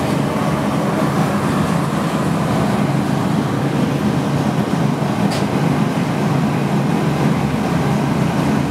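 Glass-blowing glory hole burner running with a steady low rumble while a gather of glass is reheated inside.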